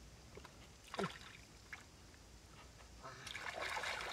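Hands sloshing and splashing through shallow muddy water while groping in the mud, with one sharp plop about a second in and a longer burst of splashing near the end.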